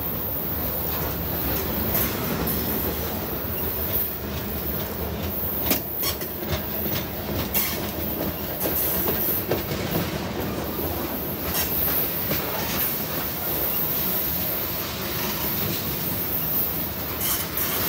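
Freight cars rolling past close by: steel wheels on the rails make a steady rumble and hiss, broken by scattered sharp clicks and knocks as the wheels cross rail joints.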